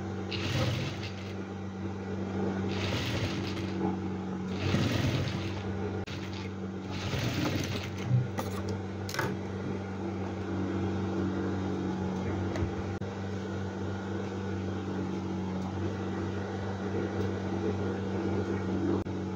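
Industrial sewing machine with its motor humming steadily. Several short rushes of noise come in the first eight seconds, then the hum carries on alone.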